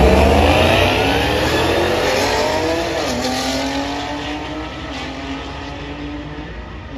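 Performance vehicle engine at hard acceleration, its pitch rising steadily for about three seconds, then dropping to a lower, steadier note as the sound fades.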